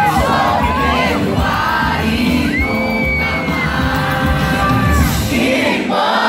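Amplified live band music at a pop concert, with a large crowd singing along and shouting close by, recorded from among the audience. A high note is held for about a second around the middle.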